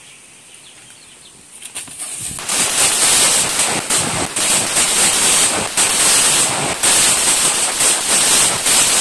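A string of firecrackers going off: a few pops about two seconds in, then a loud, rapid, unbroken crackle of bangs that keeps going.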